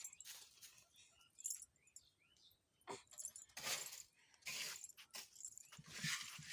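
Rustling and light clattering handling noises, with a sharp click about three seconds in.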